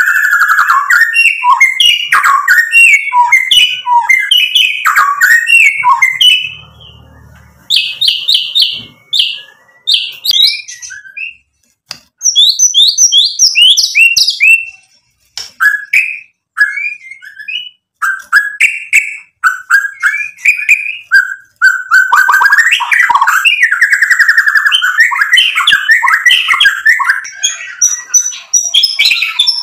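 White-rumped shama singing loudly in full song: a fast, varied run of clear whistles, sweeping notes and chattering phrases, broken off briefly a few times.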